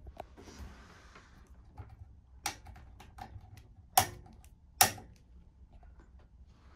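Switch of a personal reading lamp in an A149 railway coach being clicked: a lighter click, then two sharp clicks just under a second apart, each with a brief ringing tone, over a low steady rumble.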